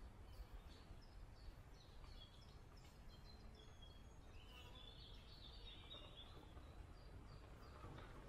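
Faint birdsong: several birds giving short chirps and warbling phrases, busiest about three to five seconds in, over a low rumble. Near the end the tyre noise of an approaching mountain bike on the dirt path begins to rise.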